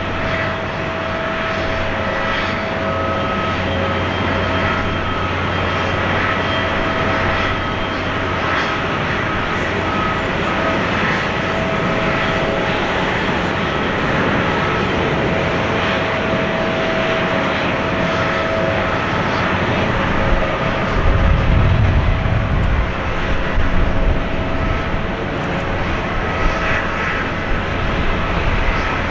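Airbus A340-600's four Rolls-Royce Trent 500 turbofans at taxi power: a steady jet whine with several held tones over a rushing hum. A brief low rumble swells about two-thirds of the way in.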